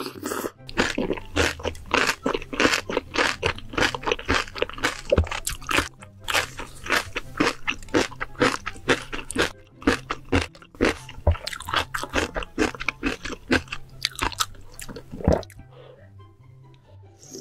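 Close-miked mukbang-style chewing of crisp, crunchy food: loud, rapid crunches several times a second, dying away near the end, over soft background music.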